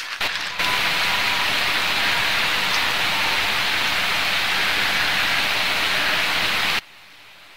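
Steady rushing of a nearby creek, volume-boosted into a loud, even hiss that starts suddenly about half a second in and cuts off abruptly near the end.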